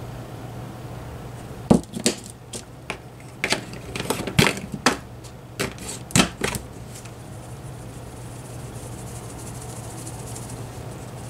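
Plastic glitter containers being handled as more glitter is added to a mix: about seven sharp clicks and taps spread over the first six or seven seconds, then only a faint high hiss.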